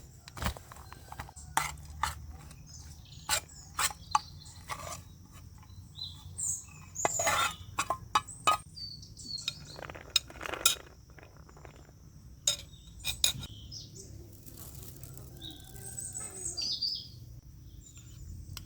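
Dishes and utensils clinking and knocking at irregular intervals while kitchen work goes on, with a few short bird chirps in the background.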